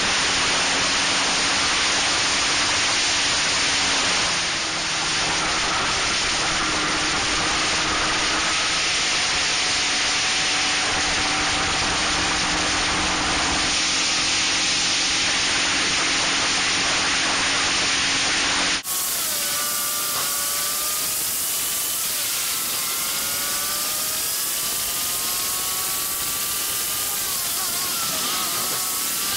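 Heavy wind rush over the microphone of an onboard action camera on a Locost racing car at speed, with the engine note faintly underneath. In the last third the engine note climbs and drops in pitch several times.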